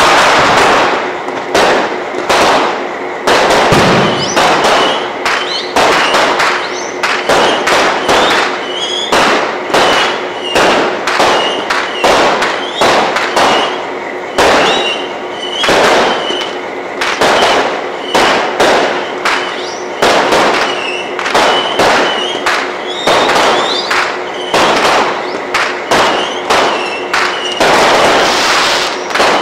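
Fireworks display: an irregular string of sharp bangs from bursting shells, several a second, with crackling between them.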